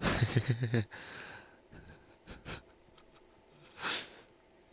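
A man's stifled laugh: a quick run of low chuckles, then a few breathy exhales, the loudest about four seconds in.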